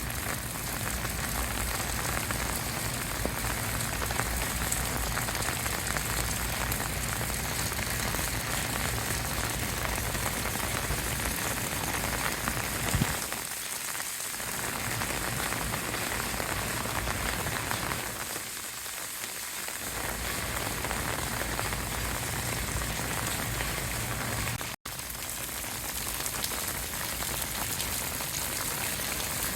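Steady rain falling on hard surfaces, an even hiss with a single sharp knock about halfway through.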